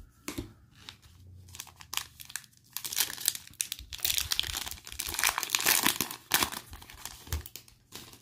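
Plastic-foil wrapper of a Panini Mosaic football card pack crinkling and tearing as it is torn open by hand. Soft rustling at first, then a dense run of crackles from about three seconds in that stops near the end.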